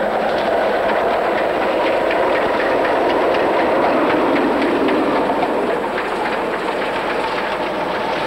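BR Standard 4 2-6-4 tank steam locomotive passing close by, running bunker-first, with wheels clicking over the rail joints. It is loudest about four seconds in, as the engine goes by.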